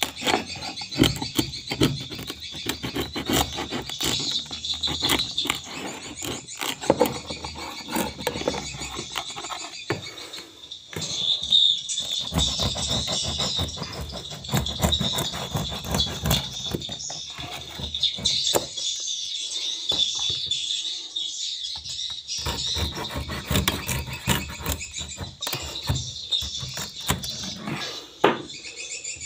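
Many swiftlets calling in a swiftlet house: a constant high twittering chorus with dense sharp clicks, broken by irregular knocks and handling noise.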